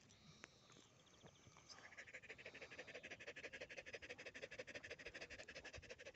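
Dog panting fast and evenly, close up, about ten short breaths a second, getting louder about two seconds in.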